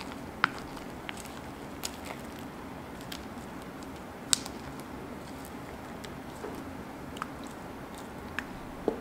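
Fluffy slime being stirred and folded with a wooden craft stick in a glass bowl: soft sticky squishing with a few sharp clicks, the loudest about four seconds in.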